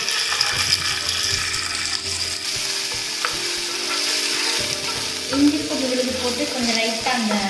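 Ginger-garlic paste sizzling in hot oil in a non-stick frying pan, stirred and spread with a wooden spoon; a steady, hissing fry.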